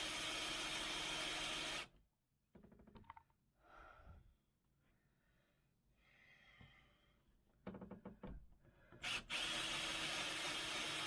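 Power drill driving a hole saw through a solid pine door, running steadily, stopping about two seconds in, then a few short bursts and running steadily again near the end.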